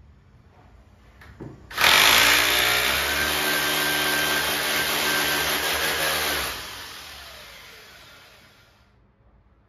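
Electric drill running as it bores a hole into the wall, a steady motor whine with grinding noise. It starts about two seconds in, runs about five seconds, then fades away over the next two or three seconds.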